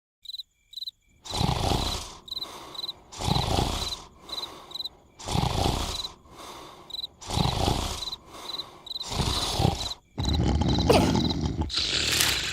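Cartoon snoring: loud rasping snores about every two seconds, a smaller breath between each, over crickets chirping in short high pulses. About ten seconds in, a louder continuous noise takes over.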